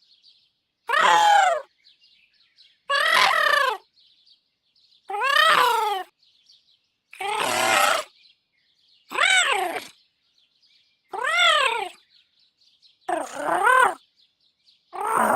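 Cute robot-droid vocal sound effects from the angry set: a series of short electronic squawks, about one every two seconds, each rising and then falling in pitch.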